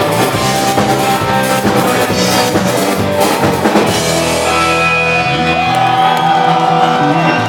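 Rock music with a drum kit and guitars, and no vocals. The drum hits thin out about halfway through, leaving held chords ringing.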